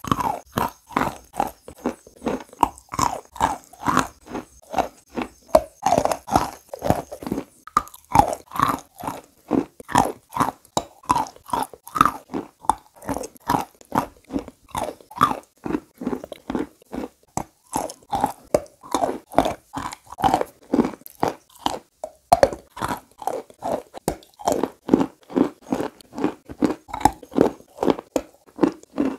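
Chunks of chalk being bitten and chewed close to a clip-on microphone: a rapid run of sharp crunches, about three a second, with brief gaps.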